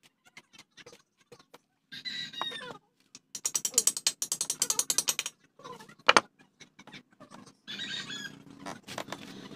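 Ratchet wrench clicking rapidly, about ten clicks a second for some two seconds, while a bolt on a motorcycle frame is worked. Lighter single clicks come before it, and one sharp metal knock about six seconds in.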